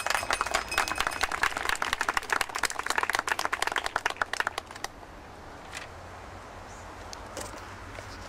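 A small audience applauding, many hands clapping at once, dying away about five seconds in.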